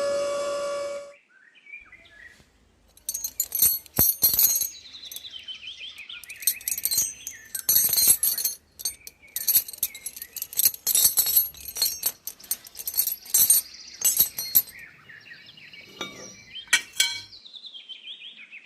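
A small electric motor whining steadily winds down and stops about a second in. Then comes a long run of quick, sharp, high-pitched chirps and clinks, on and off, with brief gliding squeaks among them.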